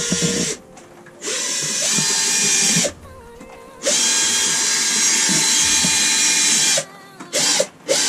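Power drill boring overhead into the caravan ceiling, run in bursts: one ending just after the start, another of about two seconds, then a run of about three seconds, and two brief blips near the end.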